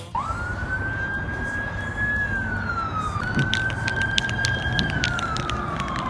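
Emergency vehicle siren wailing: the tone rises and holds, slides down, rises again and holds, then falls away near the end. Underneath is a steady rush of traffic noise with a few light clicks in the second half.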